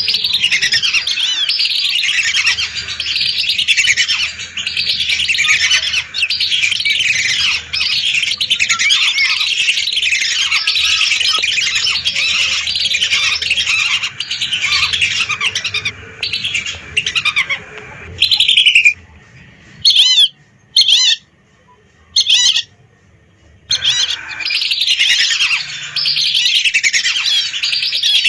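A large flock of whistling ducks calling: a dense chorus of many overlapping high, clear whistles. About two-thirds of the way through, it thins to a few separate calls with short silences between them, then swells back into a crowded chorus.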